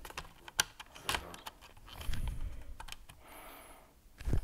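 Plastic clicks and knocks of a magazine being worked into the magazine well of a Snow Wolf M41A Pulse Rifle airsoft replica without latching, with a dull thump near the end.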